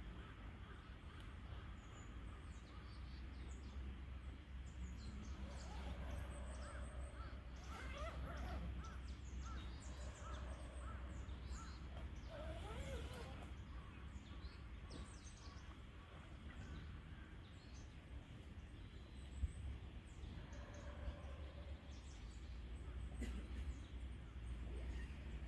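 Scattered bird calls over a low steady rumble, with a single sharp click about nineteen seconds in.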